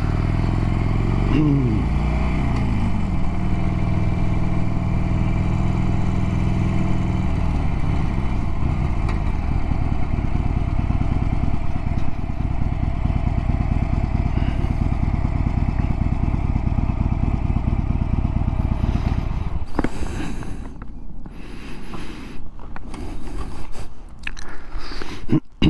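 Harley-Davidson 1200 Sportster's V-twin engine running under way, its pitch rising and falling in the first few seconds, then steady. About 20 seconds in the engine sound drops away, leaving uneven rustling and a few sharp knocks.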